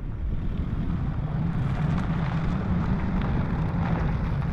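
Wind rumbling on the microphone while a van drives past on a farm road; its engine hum and tyre noise swell about halfway through.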